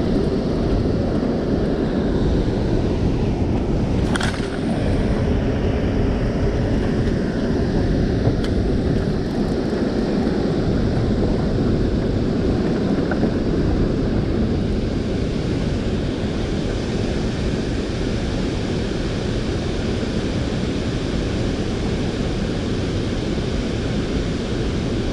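Steady rush of water pouring from a dam spillway's open flood gates into churning tailwater, mixed with wind buffeting an action-camera microphone. A single sharp click about four seconds in.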